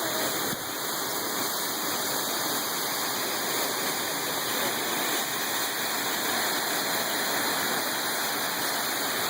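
Waterfall: a steady, even rush of water falling onto rock.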